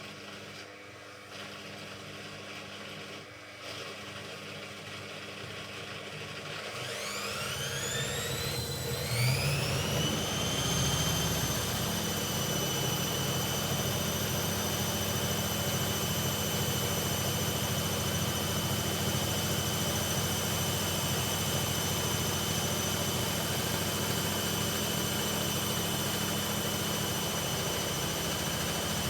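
Hoover Ecologic washing machine's motor and drum spinning up on a spin-only cycle: a whine that rises steeply in pitch for about five seconds, starting about seven seconds in, then holds steady at full spin speed over a low hum.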